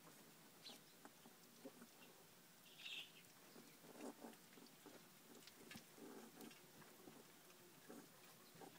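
Faint sounds of puppies playing: a short high squeak about three seconds in, a few low grunts, and the soft scuffle of paws on a blanket.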